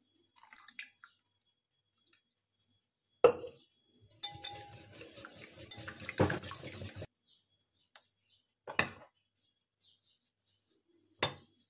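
Wire balloon whisk beating liquid batter in a ceramic bowl for about three seconds, set between sharp knocks of utensils against the bowl: a loud one just before the whisking starts and two more afterwards.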